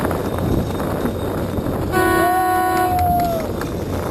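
A horn blast about two seconds in, lasting about a second. A second, higher tone overlaps it and slides down in pitch as it ends, over steady wind and water noise.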